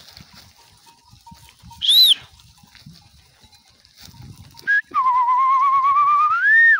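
A person whistling close by: a short, sharp rise-and-fall whistle about two seconds in, then a long wavering whistle near the end that climbs in pitch before it cuts off.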